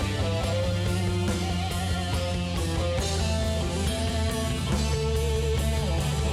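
Live rock band playing an instrumental passage, with guitar over bass and drum kit.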